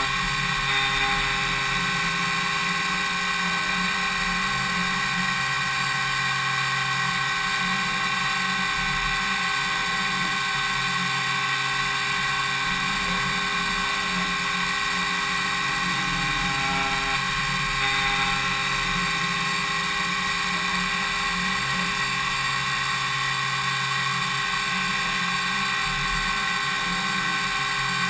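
DMU 70V 5-axis CNC machining centre milling impeller blades: a steady spindle-and-cutter whine of many high tones at once over a low hum.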